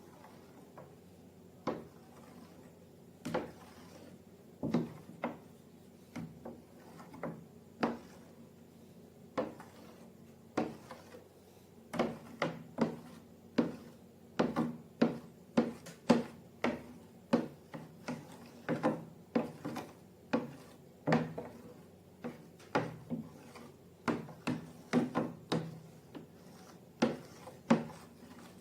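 Irregular sharp taps and knocks of objects being handled. They are sparse at first and come about one or two a second from about twelve seconds in.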